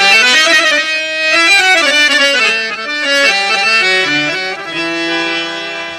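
Instrumental opening of a Hindi film song: a free-reed instrument plays a slow melody line that steps downward and settles on a long held low note near the end.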